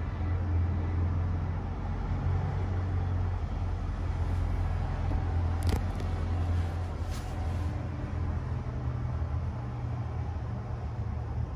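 Steady low hum, with two faint clicks about six and seven seconds in.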